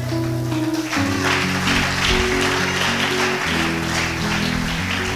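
Instrumental music of sustained, slowly changing chords, with a congregation applauding from about a second in.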